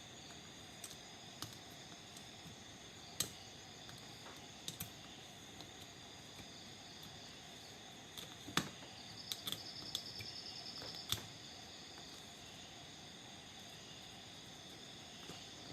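Faint, scattered sharp clicks and taps of small hand tools on a car stereo circuit board during soldering work, over a steady faint hiss with a thin high whine. A short run of rapid ticking comes about nine seconds in.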